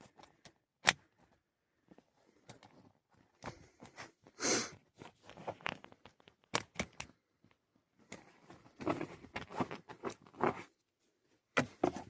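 Scattered clicks, taps and rustling of hand tools and parts being handled, with one sharp click about a second in and a short rustle around four and a half seconds in.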